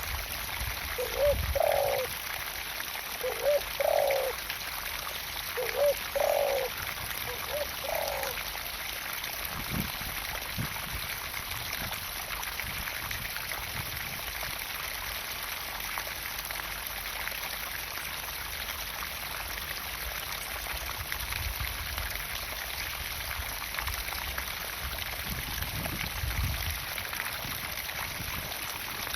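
Water pumped into a garden pond, pouring and splashing steadily. A two-note animal call repeats about five times in the first eight seconds.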